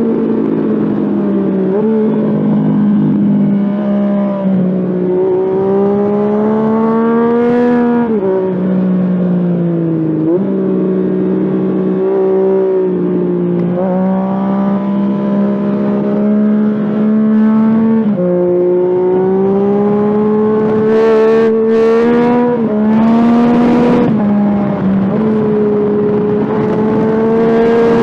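Yamaha FZ-09 (MT-09) inline three-cylinder motorcycle engine under way at fairly steady revs, its pitch climbing slowly and then dropping or jumping every few seconds as the rider works the throttle and gears. Brief bursts of hiss come through near the end.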